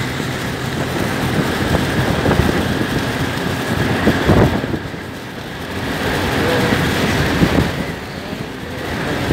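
Small Suzuki motorcycle ridden along a road, its engine running under a rush of wind on the microphone that swells and eases a few times.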